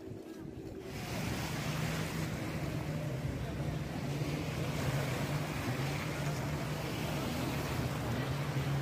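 An engine running steadily with a low hum under a loud rushing noise, which comes in abruptly about a second in.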